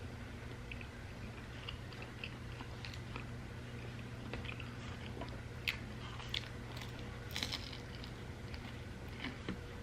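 Close-miked chewing and biting of pizza: small wet mouth clicks and crunches throughout, with a few louder bites just past the middle, over a steady low room hum.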